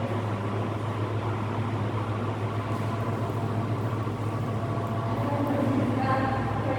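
1970s Loren Sid ceiling fan running, its motor giving a steady low hum.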